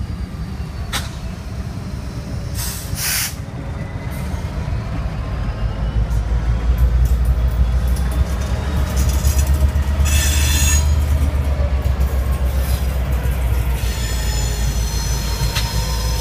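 Freight cars rolling past on curved track, with wheels squealing in gliding tones and a few short sharp clanks and hisses. From about six seconds in, the low drone of the trailing EMD two-stroke diesel locomotives, Norfolk Southern GP59 4633 and GP38-2 5081, grows louder as they draw near.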